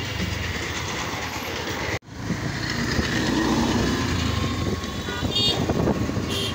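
Street traffic heard from a moving vehicle: a steady engine rumble and road noise, with short horn toots twice near the end. The sound drops out for an instant about two seconds in.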